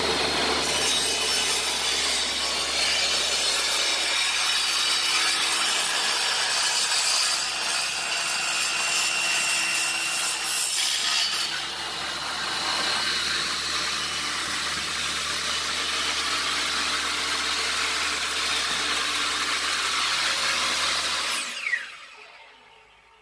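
Electric saw cutting through wooden plank for about twenty seconds, running steadily. Near the end the cut stops and the motor winds down with a falling whine.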